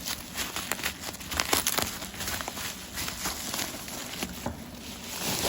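Plastic packaging and bubble wrap crinkling and rustling as it is handled and pulled off a box, with many small crackles and clicks.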